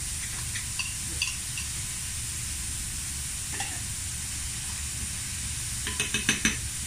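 Finely chopped zucchini, carrot and onion sizzling steadily in oil in a frying pan as chopped fresh tomatoes are tipped in and stirred. A spoon scrapes and clicks against the pan several times near the end.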